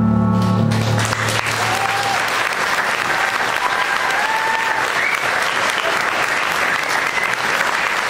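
An audience applauding steadily after the music's final held chord dies away about a second in, with a few voices calling out among the clapping.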